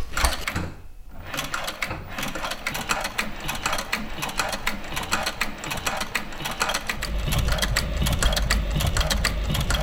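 A short scrape of a half-moon saddler's knife slicing through leather, then an industrial sewing machine stitching saddle leather with fast, even needle strokes. The machine runs louder and heavier from about seven seconds in.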